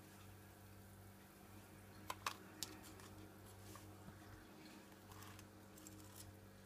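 Near silence with a faint steady hum. About two seconds in, a metal spoon gives three quick sharp clicks against the baking-soda tub and dish, followed by a few faint ticks as the soda is scooped.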